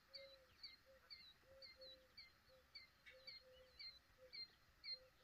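Faint wildlife calls: short high chirps evenly repeated about three times a second, over a lower series of short notes about twice a second.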